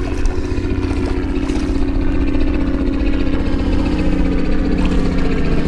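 Boat motor running at a steady speed with a constant low hum.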